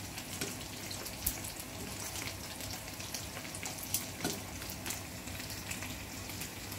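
Dried sap-sap fish frying in oil in a small pan: a steady sizzle with scattered pops and crackles. The cook judges the oil not hot enough for the fish to crisp.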